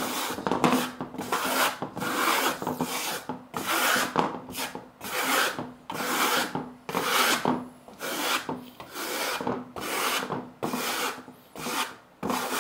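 Plastering trowel scraping decorative plaster across a thin wooden board, in repeated strokes a little more than once a second.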